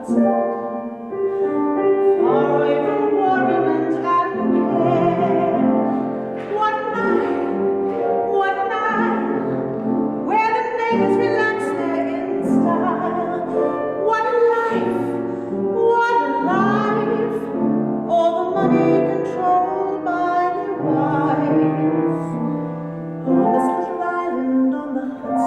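A show tune sung to rehearsal piano accompaniment, with a voice holding and gliding between long notes.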